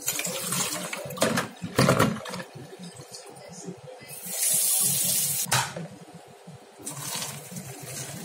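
Washing lemons in a plastic basin in a stainless-steel kitchen sink: water sloshes as the basin is emptied, and the basin knocks twice against the sink a second or two in. Then comes a stretch of scratchy hissing as a lemon is scrubbed with a toothbrush, ending in a click, and tap water starts pouring into the basin near the end.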